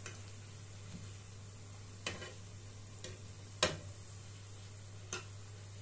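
A metal fork clicking against a non-stick frying pan while plantain slices are turned in hot oil: a few separate clicks, the sharpest about three and a half seconds in, over faint sizzling.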